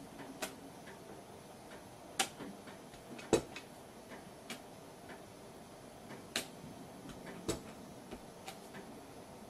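Irregular light clicks and taps of clear polymer stamps being pressed onto card and set down on the table, the sharpest a little over three seconds in.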